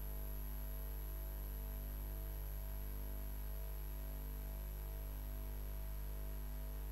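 Steady electrical mains hum with many overtones and a thin high whine, unchanging, from the audio feed.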